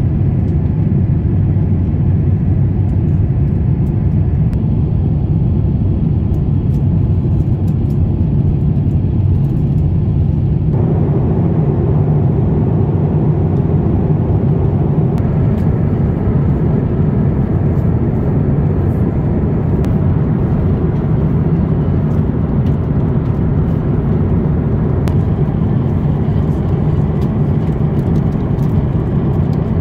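Steady, deep rumble and rush of jet-airliner cabin noise inside an Airbus A350-900, from its Rolls-Royce Trent XWB engines and the airflow. The higher hiss brightens abruptly about eleven seconds in and again a few seconds later.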